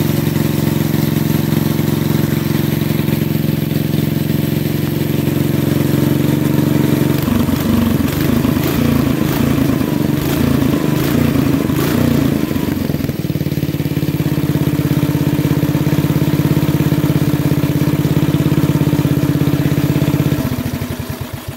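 An engine idling steadily, then revved unevenly for several seconds in the middle before settling back to idle. It shuts off near the end.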